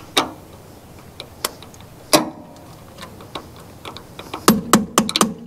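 Metal wrench clicking and clinking on a nut as a loose electrical connection on the diesel tractor is tightened. There are a few scattered clicks, then a quick run of ringing metallic clicks, about four a second, near the end.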